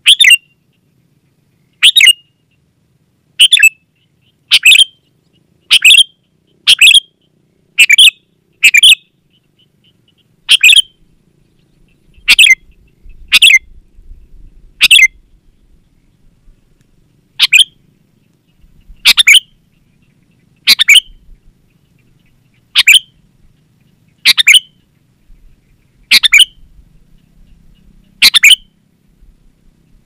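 Sooty-headed bulbul (kutilang) calling over and over: short, loud chattering phrases, each well under a second, coming about every one to two seconds with a few longer pauses.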